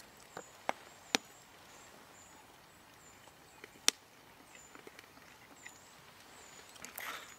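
Quiet woodland air with a small bird repeating a thin, high call about twice a second. A few sharp clicks come through, the loudest about four seconds in.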